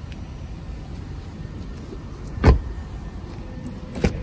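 A single dull thump about two and a half seconds in, then near the end the sharp click of the SUV's exterior door handle being pulled and its latch releasing, over a low steady rumble.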